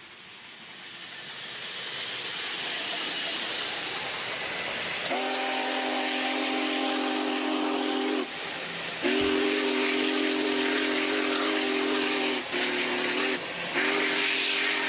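Steam locomotive approaching, a rising rush of steam and running noise, then its steam whistle blows two long blasts, one short and one long: the grade-crossing signal.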